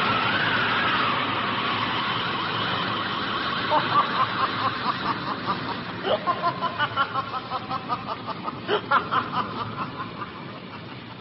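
Radio-drama sound effects: an eerie wailing tone gliding up and down, then a run of quick high pulses, about three or four a second, that fade away near the end.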